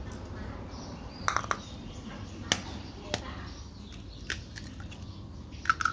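Eggshells cracking: a handful of separate sharp cracks and clicks as a raw egg is broken open over a bowl and its shell pieces are crumbled.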